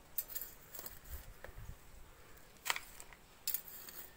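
Faint scratchy rustling of a crumbly potting mix of soil, coir pith and cow-dung powder being spread by a gloved hand into a glazed pot, with two sharper scrapes, one near the middle and one towards the end.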